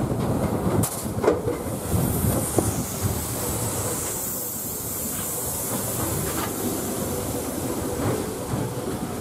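Big Thunder Mountain Railroad mine-train coaster cars rolling along the track, wheels rumbling steadily with a few sharp clacks in the first few seconds. A high hiss rises over the rumble for a few seconds in the middle.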